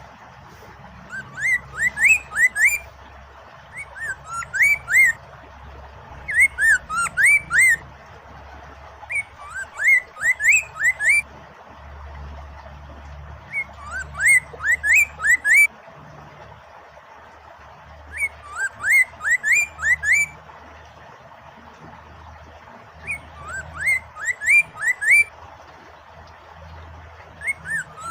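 Poksay mandarin laughingthrush singing: short phrases of quick, clear whistled notes slurring up and down, repeated every few seconds, over a steady hiss of flowing water.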